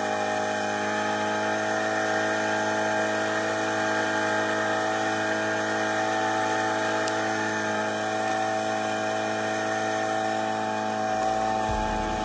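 Small outboard motor driving an inflatable boat, running at a steady speed with an even, unchanging pitch.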